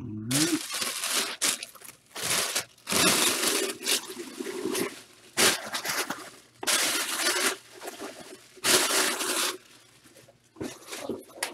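Packaging being torn and crumpled by hand, in a series of rustling bursts about a second long with short pauses between them.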